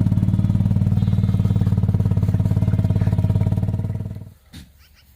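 Engine running steadily with a regular pulsing beat, then dying away about four and a half seconds in.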